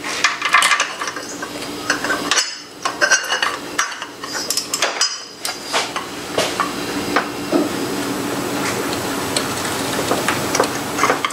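Metal clinks and clanks of a steel tube being handled and fitted over a ratchet as a cheater bar for breaking loose cylinder head bolts. A run of sharp knocks in the first half gives way to a steadier noise with small ticks in the second half.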